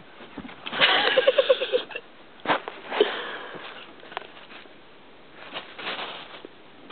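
Beagle and ferret playing at close quarters: bursts of snuffling and huffing from the animals. The loudest is a quick run of pulses, about eight a second, about a second in, with more bursts near two and a half, three and six seconds in.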